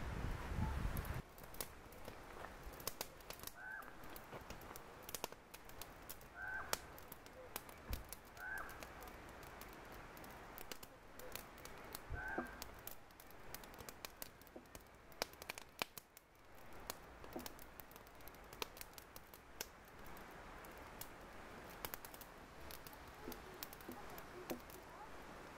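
A knife working a thin wooden strip, giving many small sharp clicks and cracks of the blade in the wood, while a crow caws four times in the background during the first half.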